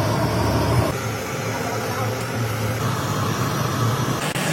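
An engine running steadily, with a low hum that wavers slightly in pitch.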